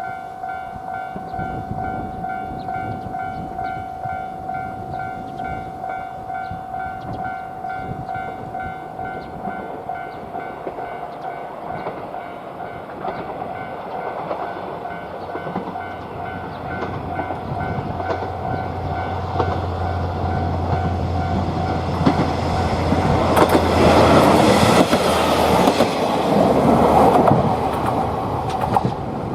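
Japanese level-crossing bell ringing its repeated 'kan-kan' as a KiHa 40-series diesel railcar approaches, its engine hum building from about halfway. The railcar passes loudly near the end, wheels clattering over the rail joints.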